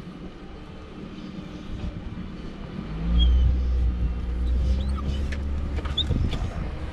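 Van engine running, heard from inside the cab; its deep rumble grows much louder about three seconds in as the van moves off.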